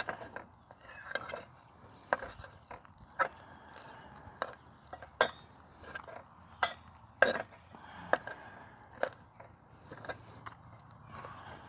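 Light clinks and taps of utensils against dishes at a camp meal: about a dozen sharp, separate knocks at irregular intervals, roughly one a second.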